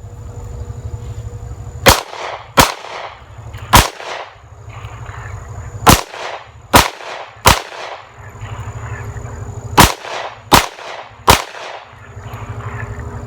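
Smith & Wesson M&P pistol fired in three strings of three quick shots, each string a failure drill of two shots to the body and one to the head, with about two seconds between strings. Each shot trails off in a short echo.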